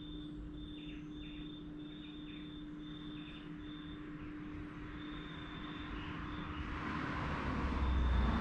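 A vehicle passing by, its noise swelling from about six seconds in to a peak near the end, over a steady low hum and a faint high tone that cuts in and out.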